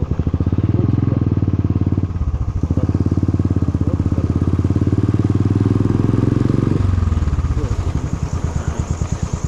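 Motorcycle engine and loud exhaust running with a fast, even pulse. The note eases briefly about two seconds in, swells again, and drops back about seven seconds in.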